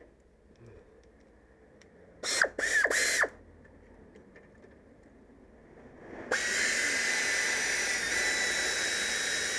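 A cordless power driver spins in three short bursts about two seconds in, then runs steadily with an even whine from about six seconds in, driving in the fitting bolts of the air-conditioning compressor's low-pressure hose.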